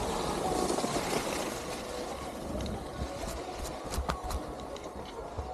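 Skis sliding and hissing steadily over snow, with wind rumbling on the microphone; a few sharp clicks stand out about three to four seconds in.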